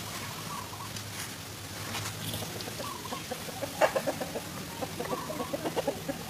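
Animal calls: a few short calls, then a sharp click a little under four seconds in followed by a quick run of short pulsed calls, about five a second for two seconds, over a low steady hum.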